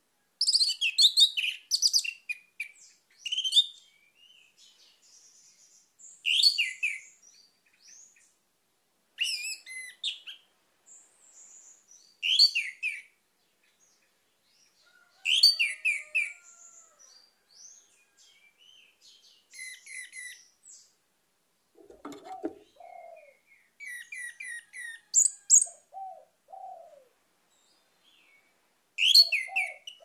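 Orange-headed thrush singing: loud, varied song phrases of a second or two, repeated every few seconds with short pauses between.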